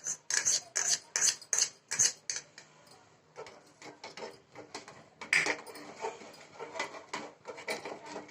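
A spoon clinking and scraping against a pot while stirring lemon juice into just-boiled milk to curdle it. The first two seconds bring quick, regular clinks about three a second, and then the stirring turns softer and irregular, with one louder knock about five seconds in.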